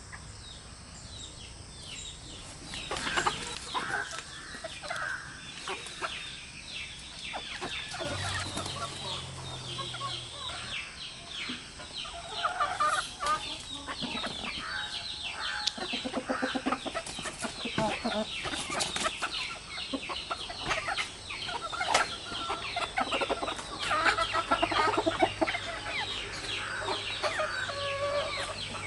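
A flock of hens and roosters clucking and calling, with a dense run of short, high chirps throughout.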